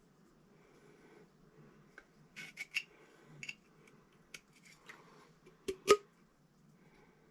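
Light clicks and scrapes of copper pipe and fittings being handled and fitted together, ending in two sharp knocks close together about six seconds in.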